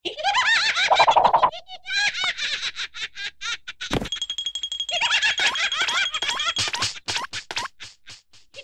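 High-pitched cartoon laughter from the red larva, quick squealing peals, one after another, as it rolls about laughing. A sharp hit sounds about four seconds in.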